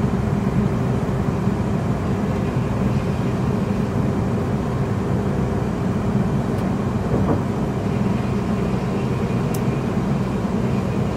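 Cabin noise inside a London Northwestern Railway Class 350 Desiro electric multiple unit running at speed: a steady rumble of wheels on rail with a low hum underneath.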